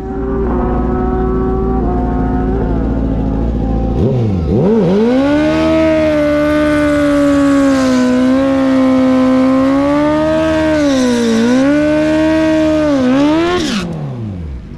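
Drag-racing motorcycle engine running steadily, then about four seconds in the revs jump and are held high for a burnout as the rear tire spins in smoke, dipping and rising a few times before falling away sharply near the end.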